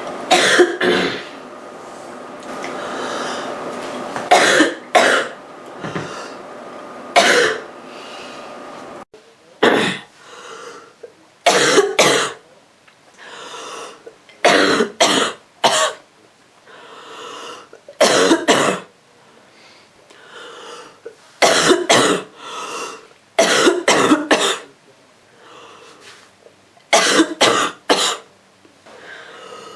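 A girl coughing roughly from a cold, in repeated fits of two or three coughs every couple of seconds.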